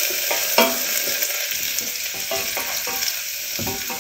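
Minced garlic, ginger and turmeric sizzling in hot ghee in a stainless steel saucepan on medium-high heat, stirred with a wooden spoon that knocks against the pan a few times.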